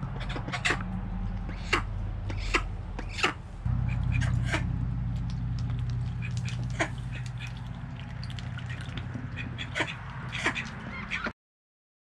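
White domestic ducks close by making a scatter of short quacks and sharp bill clicks, over a steady low hum. The sound cuts off abruptly about a second before the end.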